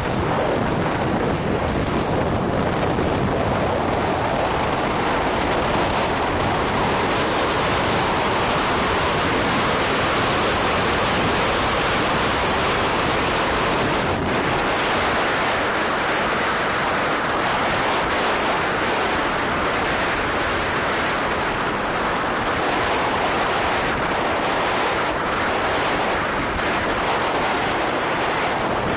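Steady wind rush on the microphone of a camera riding on a moving three-wheeled motorcycle at road speed, with road noise blended in.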